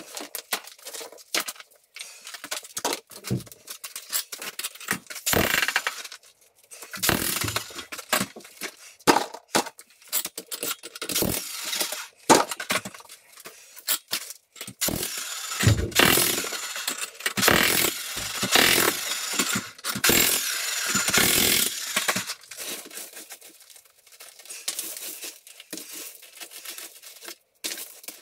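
Broken concrete rubble being cleared by hand: chunks and grit scraping on the concrete slab, knocking together and being dropped, in irregular bursts of scraping with sharp clicks.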